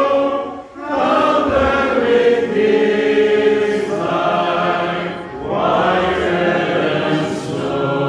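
A small congregation singing a hymn together in long held notes, pausing briefly between phrases just under a second in and again about five seconds in.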